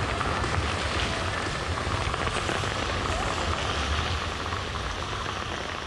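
Water from the Margaret Island musical fountain's jets splashing down into the basin, a steady rain-like hiss that begins to fade near the end.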